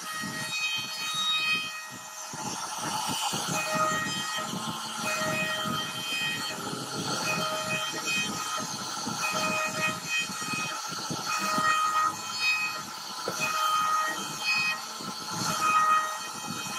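CNC router spindle whining as its cutter carves a relief pattern into solid wood. The whine comes and goes every second or so as the bit bites in, over a rough crackling of the cutter chipping the wood.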